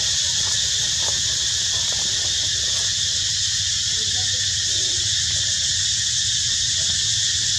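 A steady, high-pitched insect chorus drones on without a break, with a low, even rumble underneath.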